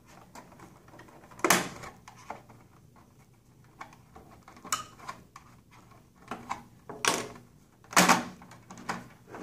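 Plastic snap-fit tabs on an HP Officejet 100 mobile printer's housing being pried with a flat-blade screwdriver: scattered small ticks and scrapes, with sharp plastic snaps as the tabs let go, the loudest about a second and a half in and again about eight seconds in.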